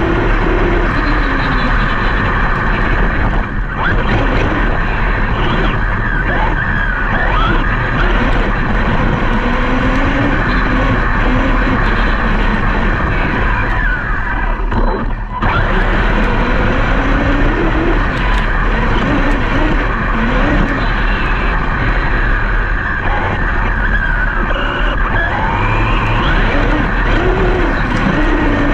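Brushless electric motors of large RC off-road trucks whining, the pitch rising and falling again and again as they speed up and slow down, over a steady rumble of wheel and ground noise.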